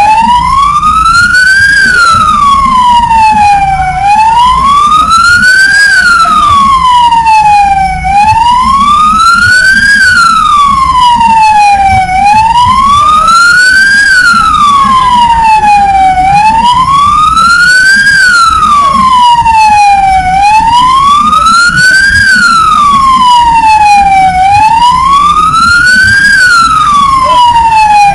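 A siren wailing, its pitch rising and falling slowly and evenly about once every four seconds, over a low rumble.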